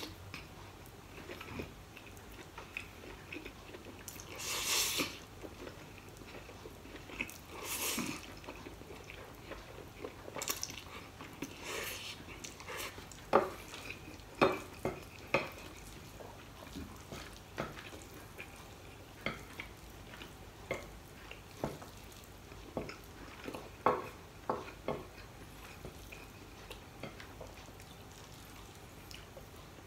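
A man eating chapagetti black bean noodles with chopsticks: two slurps in the first several seconds, then chewing with scattered short clicks of the chopsticks against the plate.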